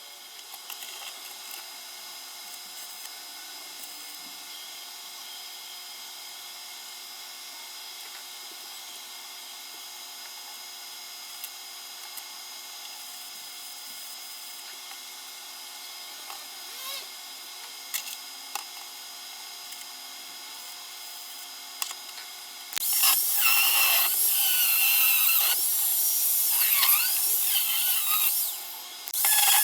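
Faint steady workshop hum with a few light clicks, then about 23 seconds in a handheld power tool starts working metal, loud, with a whining pitch that wavers and bends under load. It stops briefly near the end and starts again.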